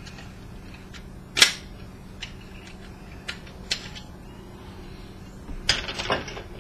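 Plastic parts of a projector lamp assembly clicking and snapping as they are pried apart by hand: one sharp snap about a second and a half in, a few lighter clicks, and a rattling run of clicks near the end.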